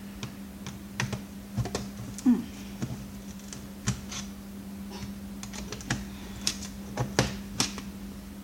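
Irregular plastic clicks and snaps as a monitor's plastic bezel is pried off around its edge, the small retaining clips letting go one after another, over a steady low hum.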